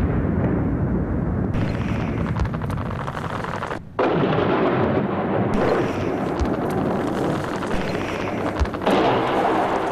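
Battle sound effects: a continuous rumble of explosions and gunfire with dense crackling, dipping briefly about four seconds in.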